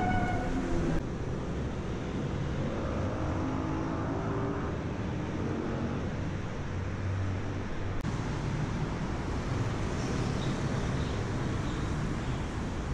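Steady city vehicle noise, a low rumble under a broad hiss, changing abruptly about a second in and again about eight seconds in.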